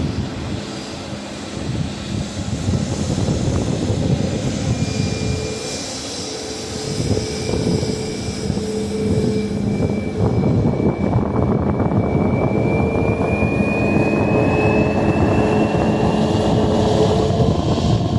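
Boeing 737 MAX 8's CFM LEAP-1B jet engines running with a steady rumble. From about halfway through the sound grows louder, and a whine climbs slowly in pitch as the engines spool up.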